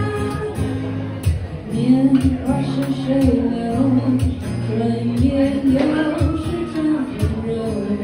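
A woman singing into a microphone while playing an acoustic guitar. The guitar chords ring on their own at first, and her voice comes in about two seconds in and carries the melody over them.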